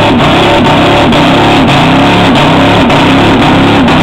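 GMC pickup truck engine at full throttle pulling a weighted sled, very loud and distorted, its pitch surging up and down about three times a second.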